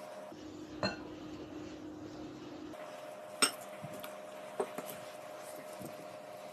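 A metal spoon clinking against a glass mixing bowl as a milky yeast mixture is stirred into flour: three short clinks, the loudest about three and a half seconds in, over a steady low hum.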